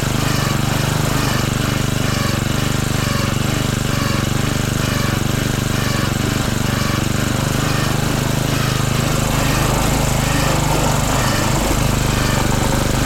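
A small motor-driven machine running steadily, with a low hum and a rapid chattering pulse.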